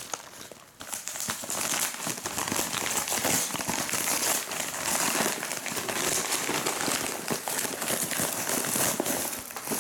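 A padded paper mailer being opened and its paper-wrapped contents handled: continuous crinkling and rustling of paper, starting about a second in.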